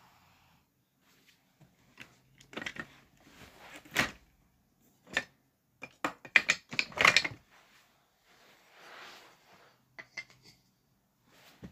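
Wooden toy train track pieces being handled on carpet: irregular clicks and knocks of wood, with soft rustling between, loudest in a quick cluster of clacks about six to seven seconds in.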